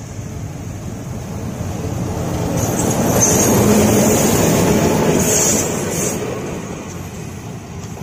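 Freight train led by a diesel locomotive passing close. The sound swells to its loudest as the locomotive goes by about three to five seconds in, then fades as the boxcars roll away.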